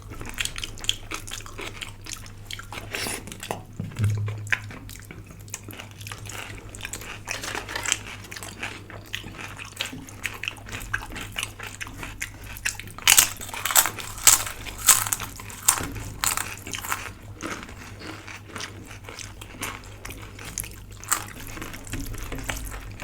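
Close-miked eating: chewing with a run of sharp crunches, loudest and most frequent about halfway through, over a faint steady low hum.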